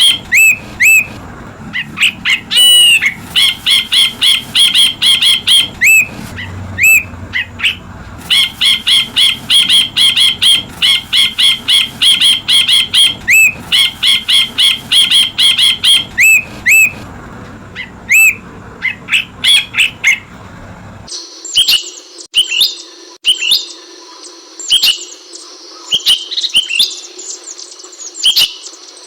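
Ashy bulbul (brinji kelabu) singing: quick runs of sharp, rapidly repeated chirps, broken by single hooked whistled notes. About 21 seconds in, the background hum cuts out and the calls continue as spaced, upward-hooked notes.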